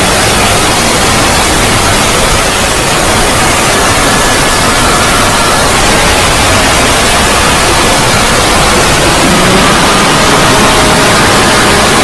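Loud, steady static-like noise filling the whole range: a heavily distorted 'void' edit of a logo sound effect, with faint held tones buried under the hiss.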